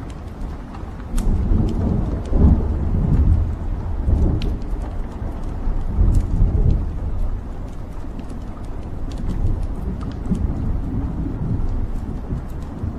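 Wood fire burning in a fireplace: a low rumble of flames with scattered sharp crackles and pops from the burning logs. The rumble swells about a second in and eases after about seven seconds.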